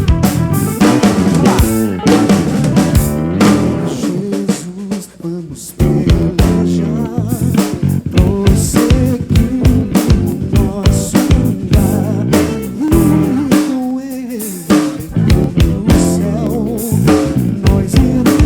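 Live soul band playing, the drum kit's snare and bass drum driving a busy beat under guitar. The music drops back briefly about five seconds in, then comes back in full.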